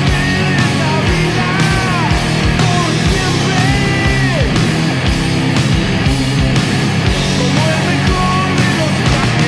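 Stoner rock band playing loud and dense: heavily distorted guitars and bass over drums, with high notes bending up and down above them.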